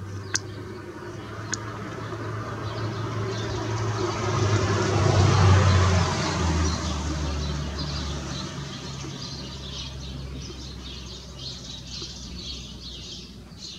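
A passing engine's rumble swells to a peak about five seconds in, drops in pitch as it goes by, then fades. Birds chirp faintly.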